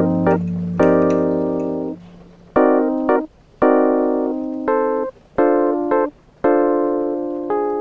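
Background music: a soul hip-hop track of keyboard chords, struck about once a second and each fading out, with short gaps between them.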